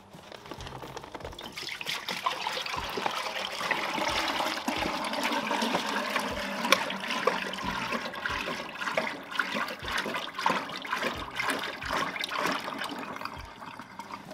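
Frying oil pouring from a 5-gallon carton into the empty metal tank of a 4-gallon Cajun fryer, a steady splashing pour. It builds over the first couple of seconds and eases near the end.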